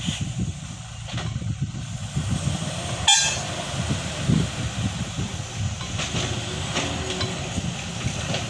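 Tata Hitachi ZAXIS 120H excavator's turbocharged diesel engine running steadily, with a brief sharp noise about three seconds in.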